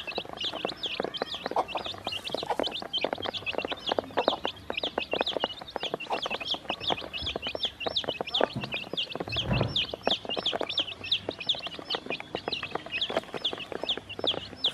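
A group of baby chicks peeping all the time, a dense stream of short high cheeps several each second, over fast clicking of beaks pecking feed from a plastic basin. A brief low rumble about nine and a half seconds in.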